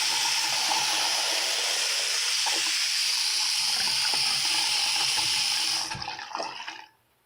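Hot water running from a tap into a container, a steady loud stream that is shut off about six seconds in and trails off briefly.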